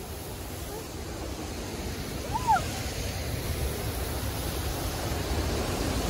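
Steady rush of river water and waterfalls around an open coracle, with a low rumble of wind on the microphone. A short voice-like sound cuts in briefly about two and a half seconds in.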